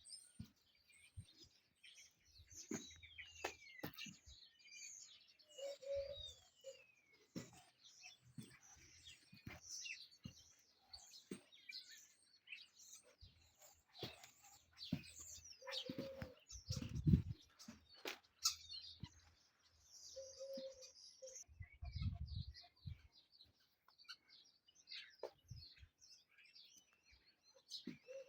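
Small birds chirping and twittering, with a short, lower call repeating every five to eight seconds. Occasional faint low thumps and rumbles sound underneath.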